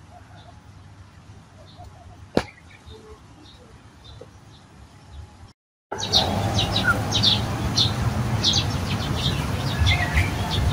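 Faint outdoor ambience with a few soft bird chirps and one sharp click about two seconds in. After a short gap of silence, small birds chirp busily and loudly, many quick high chirps over steady low background noise.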